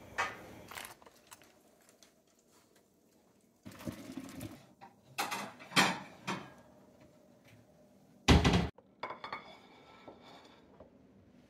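Dishes and kitchen utensils knocking and clinking: a few scattered sharp knocks, the loudest a heavier thump about eight seconds in.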